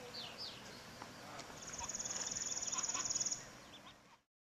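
A few faint high chirps, then a fast, high-pitched bird trill lasting nearly two seconds from about a third of the way in; the sound cuts off shortly before the end.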